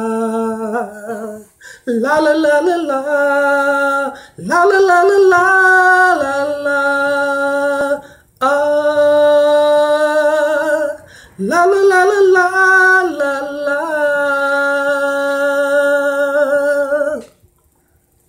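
A man singing unaccompanied, holding long notes with vibrato in wordless phrases of a few seconds each, with short breaks for breath between them; he stops about a second before the end.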